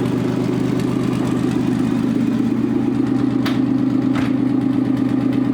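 Nissan VG30ET turbocharged V6 idling steadily from a cold start, running rough because it has not yet warmed up. Two short clicks about three and a half and four seconds in.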